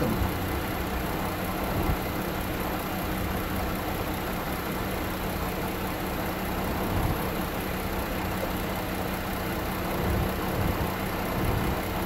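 2012 Chrysler Town & Country's 3.6-litre V6 idling steadily under the open hood, with the air conditioning switched on and the fan at its highest setting. The engine is quite loud.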